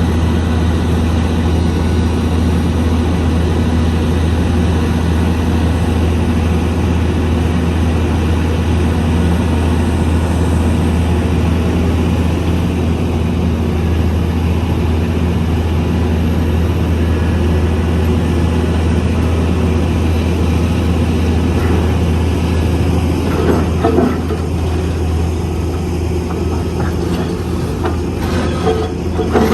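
Heavy construction machine's diesel engine running steadily with a deep, even drone. A few sharp metallic knocks come near the end.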